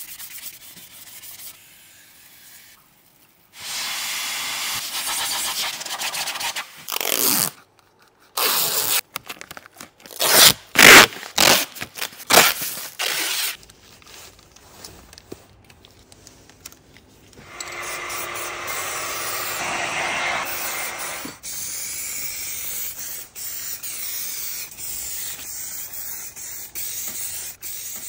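Aerosol spray cans hissing against a brake caliper: a few seconds of steady spray, then a run of short, very loud blasts, then from about the middle on a longer spray of red paint broken by brief pauses.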